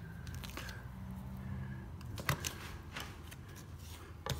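A hand plastering tool scraping and tapping on wet cornice cement as it is shaped, a few short scrapes and clicks spread through, over a low steady hum.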